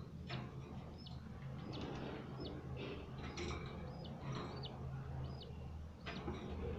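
Budgerigars making short, high chirps, about a dozen scattered irregularly, some with a quick rise and fall in pitch, over a faint steady low hum.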